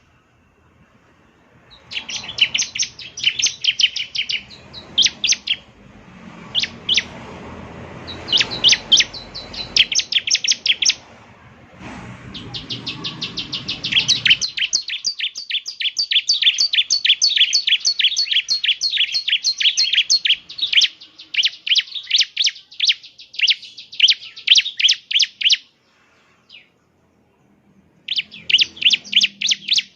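Bar-winged prinia (ciblek) singing in fast runs of sharp, high chirping notes, broken by short pauses. About halfway in it goes into a long, rapid, unbroken trill, then stops briefly and starts again near the end. A faint low rumble sits under the first half.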